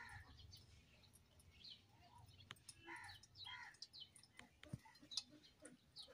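Near silence with faint bird chirps in the background and a few soft clicks.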